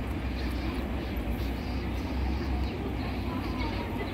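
Outdoor street ambience: a steady low rumble with an even hiss over it, with no single event standing out.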